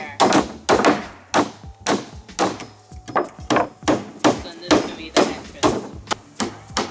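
Hammer driving nails into wooden slat boards on roof rafters: steady repeated blows, about two to three a second.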